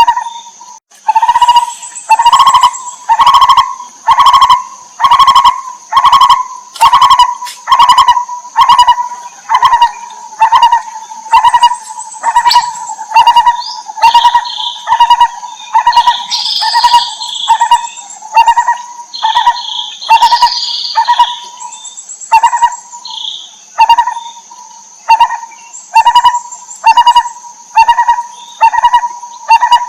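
A barbet, most likely a lineated barbet, calling a long steady series of low notes, about two a second, with a brief break a little past twenty seconds in. Higher chirps from other birds come in midway, over a steady high-pitched insect drone.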